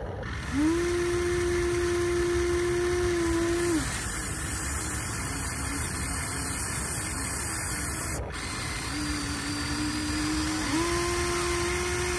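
Electric gear motors of a Huina 1593 RC excavator whining as the arm and bucket move. There are two spells: one starting about half a second in and lasting about three seconds, and another from about nine seconds in to the end. Each spell rises briefly as it starts and drops as it stops, over a steady hiss.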